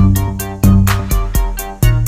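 Electronic beat with deep bass hits roughly every two-thirds of a second and quick ticking hi-hats over sustained low notes. The bass moves to a different note near the end. It is played from a mini MIDI keyboard with drum pads.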